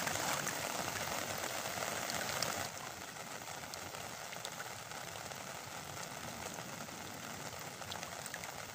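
Heavy rain falling on open water: a steady hiss with scattered drop ticks. It turns a little quieter a few seconds in.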